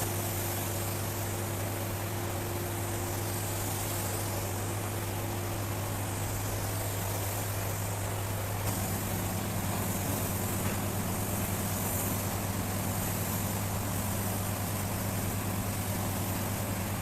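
Steady low mechanical hum under a constant hiss, with a second, higher tone joining about nine seconds in.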